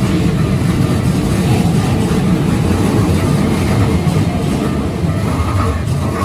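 Keikyu Line electric train passing through the level crossing at close range: a loud, steady rumble.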